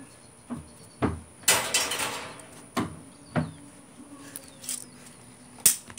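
A few dull, irregular thumps and knocks, with a rustling scrape about two seconds in and a sharp click near the end.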